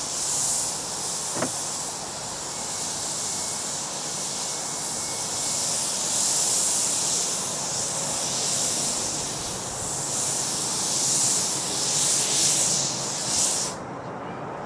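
Miniature steam locomotive hissing loudly as steam blasts from its open cylinder drain cocks while it moves off slowly. The hiss stops suddenly near the end as the drain cocks are closed.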